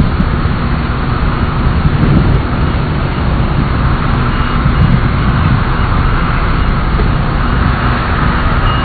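Jet engines of the Shuttle Carrier Aircraft NASA 905, a modified Boeing 747, running steadily: a constant whine over a deep rumble.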